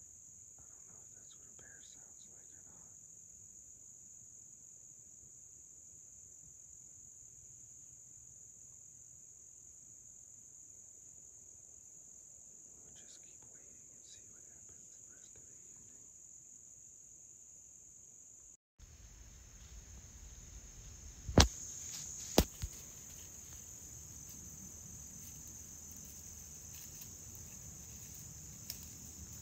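Steady, high-pitched insect chorus of crickets in the woods. About two-thirds in, the sound cuts and comes back with more low background noise, and two sharp knocks about a second apart stand out as the loudest sounds.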